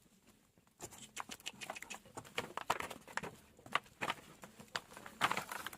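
Puppies scrabbling and pattering about: a rapid, irregular run of light taps and scuffs that starts about a second in and is busiest near the end.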